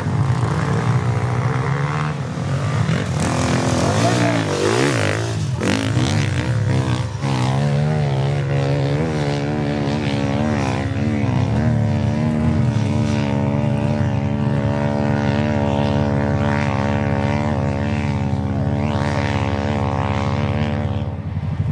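ATV engine running at high revs as the quad climbs a steep sand dune. The revs rise and fall for the first few seconds, then the engine holds a steady, slightly wavering drone until just before the end.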